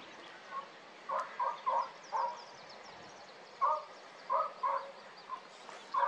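Western jackdaw calling: short, harsh 'chak' calls in two runs of about four, with another call starting near the end.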